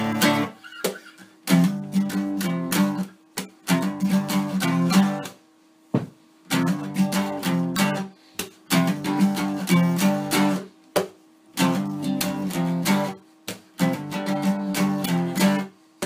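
Luna Celtic Horse acoustic guitar strummed in short bursts of chords, each cut off sharply, with brief pauses between them.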